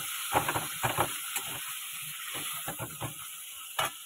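Hot oil sizzling in a cooking pan, a steady hiss broken by scattered short clicks and knocks.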